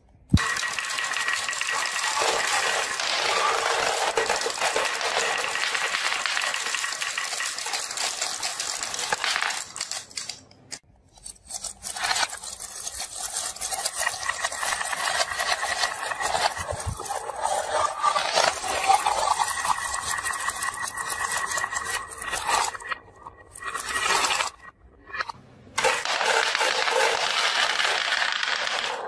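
Dozens of glass marbles rolling and clicking against each other down a zigzag wooden popsicle-stick track, poured from a plastic toy truck's bin: a dense rattle that stops about ten seconds in, starts again about two seconds later, and breaks off briefly twice near the end.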